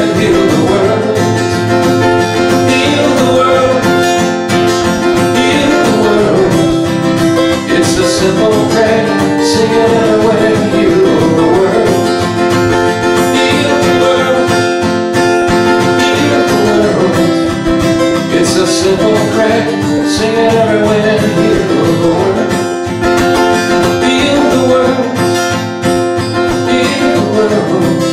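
Acoustic guitar music, a country-folk tune played without words.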